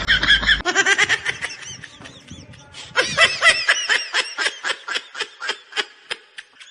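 Laughter: a long run of quick repeated 'ha' pulses, about five a second, growing louder about three seconds in and fading out near the end.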